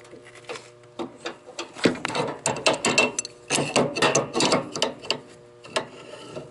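Adjustable wrench working a brass propane line fitting onto an RV furnace's gas inlet: a run of irregular metal clicks and scrapes.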